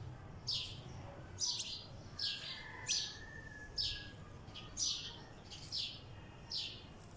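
A sparrow chirping: a steady series of short, high, separate chirps, one or two a second.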